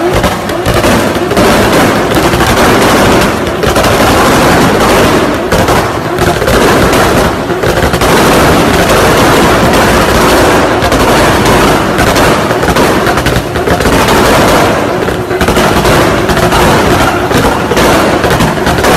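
Toyota Supra MK4's 2JZ inline-six held at high revs with a rapid, unbroken string of loud exhaust bangs and crackles, and smoke or flame coming from the exhaust.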